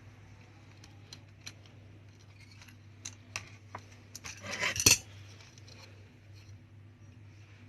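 Small metal repair tools and parts being handled on a workbench: light scattered clicks and taps, then a louder metallic clatter a little past halfway that ends in one sharp knock. A steady low electrical hum runs underneath.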